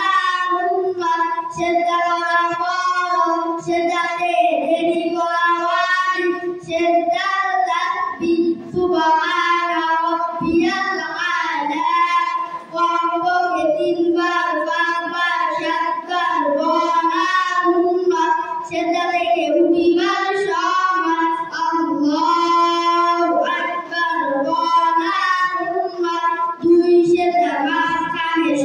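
Boys singing a song together into handheld microphones, in long held phrases with short breaks for breath.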